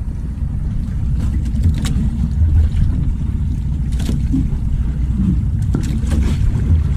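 Steady wind rumble on the microphone aboard a small outrigger fishing boat, with a few light knocks or splashes against the hull.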